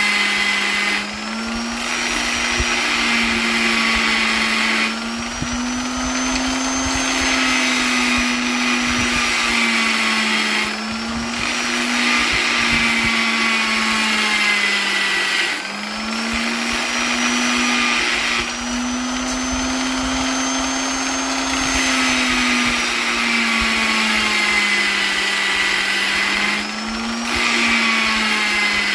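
Electric polisher motor running steadily with a high whine. Its pitch sags and recovers slightly, and the level briefly dips every few seconds.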